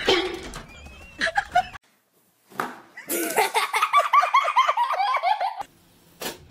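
A person laughing hard in quick, high-pitched repeated pulses for about two and a half seconds, starting about three seconds in.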